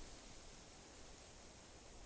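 Near silence: a faint steady hiss of outdoor background.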